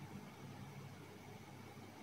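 Near silence: a faint, steady background hiss (room tone).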